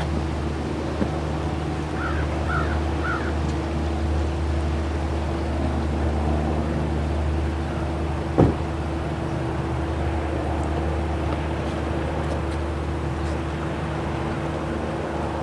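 Steady low engine drone of a large lake freighter's machinery, carrying a few steady hum tones. Three short high chirps come about two seconds in, and a single sharp knock a little past halfway is the loudest sound.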